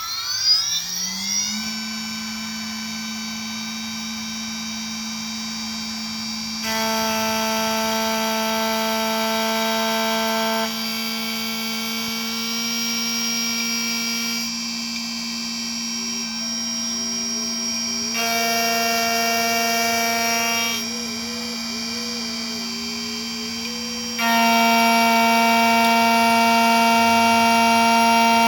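Xhorse Dolphin key cutting machine's cutter spindle spinning up in a rising whine, then running steadily as it cuts a key blank during cutting calibration. Louder, higher-pitched whines come in and drop out in stretches as the machine moves, the loudest near the end.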